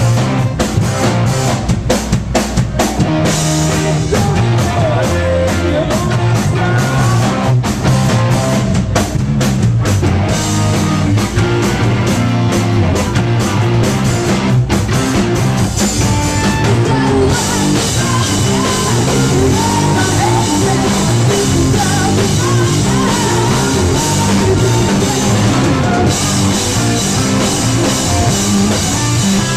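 A rock band playing loud live: electric guitars, bass and a drum kit, with a voice singing over it.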